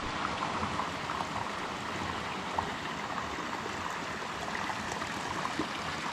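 Creek water rushing steadily over rocks, with small gurgles and splashes through it.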